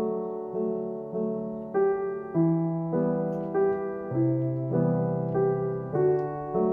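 Background piano music: a gentle, slow piano melody with notes struck about every half second.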